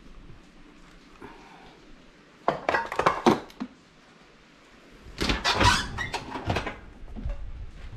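A metal baking sheet clattering in a couple of short knocks as it is picked up. About five seconds in comes a longer clatter and scrape as the oven door is pulled open.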